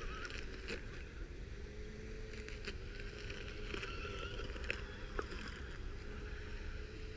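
Small electric motor of an RC crawler's homemade weed-whacker attachment spinning its blade on a single cell, a steady whine, with scattered sharp ticks as the blade hacks at small plants and throws bits of debris.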